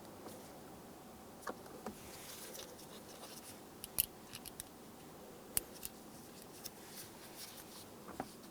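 Faint scattered clicks and ticks of a Phillips screwdriver driving the screws of a new center console lid latch, with two sharper clicks about four and five and a half seconds in.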